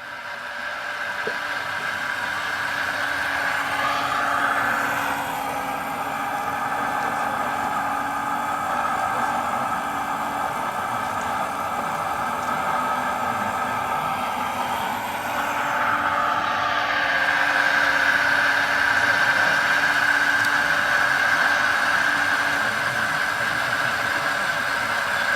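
Radio-controlled scale construction machines running: a steady mechanical whine that glides in pitch about four seconds in and again about sixteen seconds in, as the models speed up and slow down.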